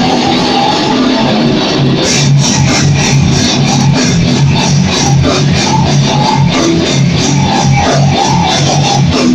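Metal band rehearsing at full volume: heavily distorted electric guitar with a drum kit. About two seconds in, the band drops into a fast, tight chugging rhythm with the drums hitting in time.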